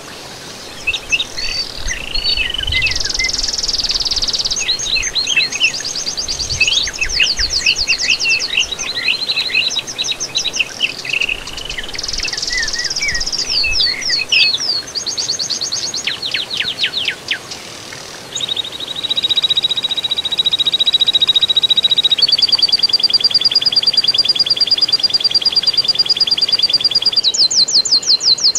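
Several birds singing and calling: quick chirps, whistles and fast trills overlapping. In the second half a long, steady, rapidly pulsed trill takes over.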